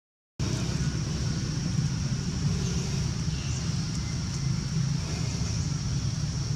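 Steady low outdoor rumble, like distant traffic or wind, with a thin steady high-pitched buzz above it. The sound drops out briefly at the very start.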